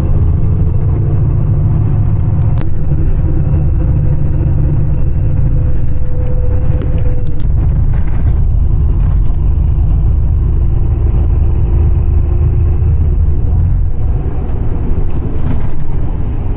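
Bus engine and road noise heard from inside the passenger cabin: a loud, steady low rumble as the bus drives along.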